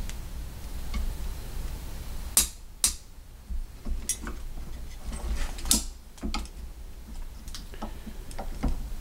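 Scattered light metal clicks and knocks as a LANTAC BMD blast mitigation sleeve is turned and pushed onto an AR-15 muzzle brake over its set screws, with a low steady hum underneath.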